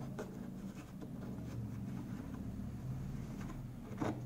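Plastic screw cap being twisted off a plastic jerrycan: light scraping and small clicks from the threads, with one louder click about four seconds in as the cap comes free. A steady low hum runs underneath.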